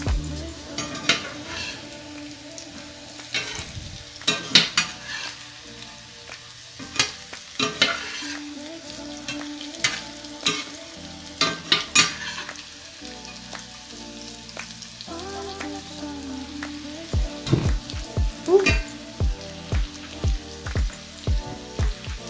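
Potato cubes frying in hot duck fat in a cast iron skillet, a steady sizzle, with a metal spatula scraping and clacking against the pan as they are stirred. In the last five seconds a regular low thump comes about every two-thirds of a second.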